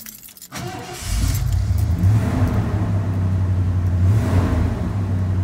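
1988 Ford F-150 pickup's engine running steadily, starting about half a second in, with its pitch lifting briefly twice.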